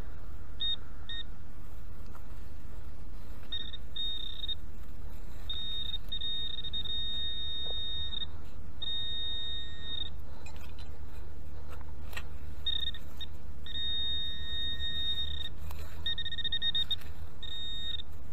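Garrett Ace 250 metal detector beeping as its coil is swept over the ground, one steady single-pitched tone sounding in short chirps and longer held beeps as it picks up a buried metal target. A low steady rumble runs underneath.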